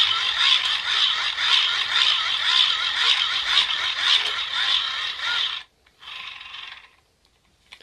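K-TOR Pocket Socket hand-crank generator being cranked: a steady geared whir with a whine that wavers up and down. It stops about five and a half seconds in, and a brief second spin follows a moment later. The generator is charging a smartphone plugged into its socket.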